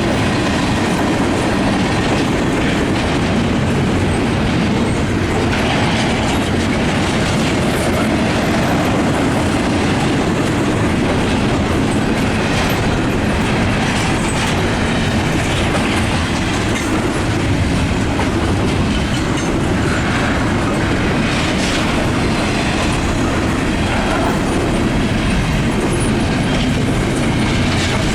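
Cars of a Norfolk Southern freight train rolling past: a steady rumble with wheels clacking over the rail joints.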